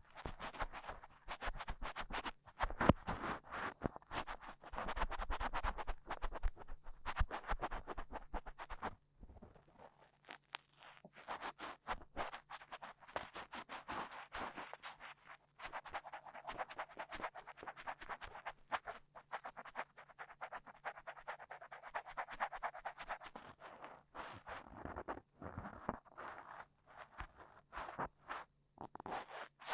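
A dry cotton swab scraping and rubbing in an ear close to the microphone, giving a dense, rapid scratchy rustle for ear-cleaning ASMR. The strokes pause briefly about nine seconds in.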